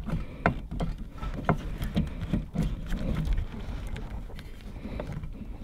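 Scattered light clicks and knocks as a brake master cylinder, with its fluid reservoir attached, is worked back by hand off the brake booster.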